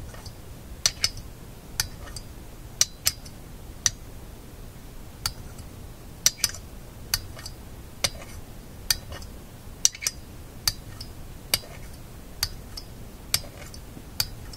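Sharp metallic clicks, one or two a second, as a horseshoe magnet is stroked across a small shadow-meter magnet held in locking pliers, snapping onto the metal and pulling away to re-magnetize it.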